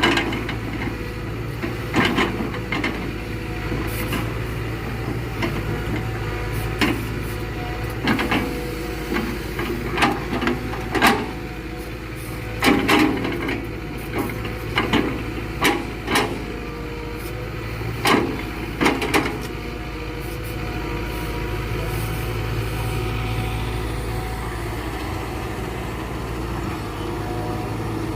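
Diesel excavator engine running steadily, with a dozen or so sharp knocks and clunks over the first twenty seconds as rubberwood logs are lifted and knocked together, then just the steady engine hum.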